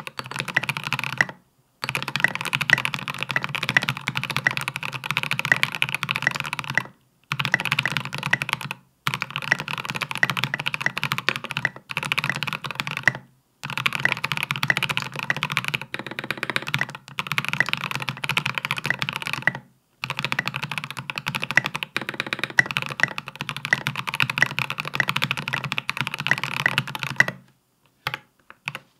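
Fast continuous typing on a Space65 custom mechanical keyboard fitted with Polaris Gray switches and SA-profile Godspeed keycaps. There are brief pauses every few seconds, and the typing stops near the end.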